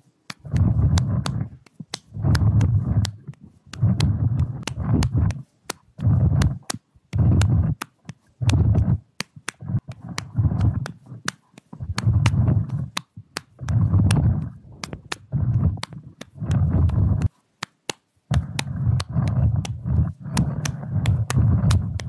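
A rake dragged in repeated strokes through soggy grass and mud, each stroke a rough, scraping rush lasting about a second, with brief pauses between them and one longer pause about seventeen seconds in.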